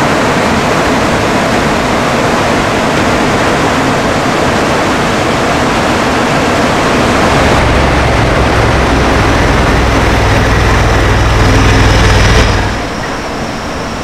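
Rushing river rapids, a steady wash of white water. About halfway through, the low hum of a side-by-side utility vehicle's engine joins in. Near the end the sound drops suddenly to a quieter, even hiss.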